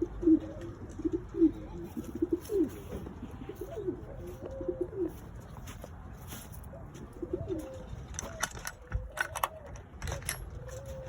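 Pigeons cooing: short, low coos in quick runs through the first five seconds and again about seven seconds in. A few sharp clicks or knocks come near the end.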